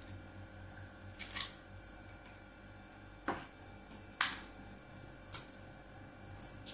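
Eggs being cracked over a ceramic bowl: scattered sharp clicks and taps of eggshell against the bowl. The loudest click comes a little past four seconds in.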